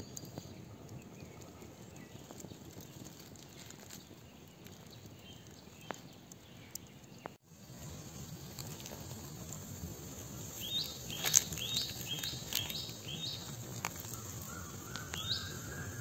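Open wood fire burning under bamboo tubes, crackling with scattered sharp pops, against an outdoor background. In the second half a bird calls a quick run of about six short high chirps, then once more near the end.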